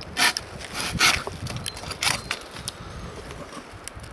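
Silky Pocketboy 130 folding pruning saw cutting into a branch beside a tree trunk: a few rasping saw strokes roughly a second apart.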